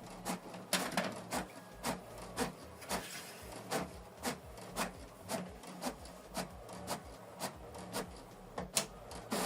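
HP DeskJet 4310 inkjet printer printing a page: the print-head carriage shuttles back and forth with a regular click about twice a second over a low motor hum. This is the first side of a manual two-sided print.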